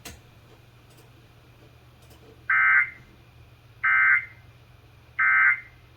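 Emergency Alert System data tones received over AM radio: three short, identical bursts of warbling digital tones, about a second apart, the End of Message code that closes the test broadcast.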